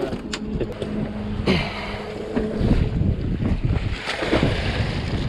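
Wind buffeting the microphone over water and boat noise aboard a small fishing boat, with a steady low hum during the first couple of seconds and a few light knocks.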